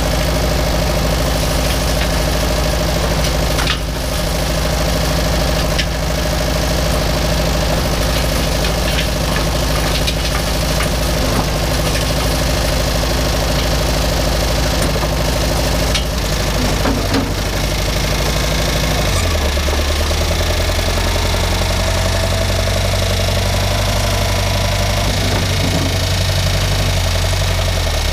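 John Deere loader backhoe engine running steadily, with a few sharp knocks from the work. About two-thirds of the way through, the engine note changes and deepens as the machine moves off.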